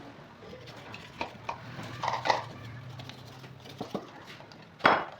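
A few separate short knocks and clacks, irregularly spaced, the loudest one near the end.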